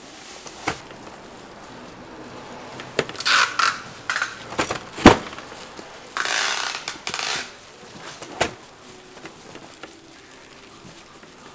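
A hand-operated metal multi-blade gimbap slicer being worked, with scattered sharp clacks and knocks, the loudest about five seconds in. Two short stretches of crunching, rustling noise come between them.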